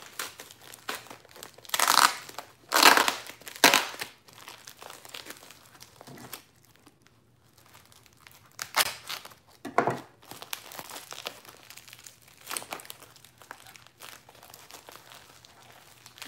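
Plastic and paper wrapping crinkling and tearing as a small wrapped parcel is opened and its white paper wrapping pulled off, in irregular rustles. The loudest come a couple of seconds in, with a quieter lull about halfway.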